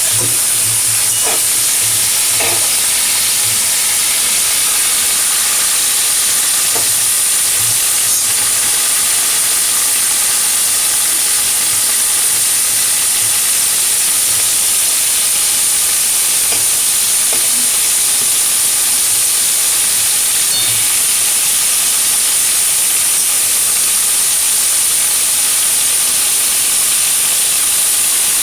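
Mixed vegetables (potato, cauliflower, carrot, beans and peas) frying in oil in a pan: a steady, loud sizzling hiss, with a few faint taps in the first several seconds.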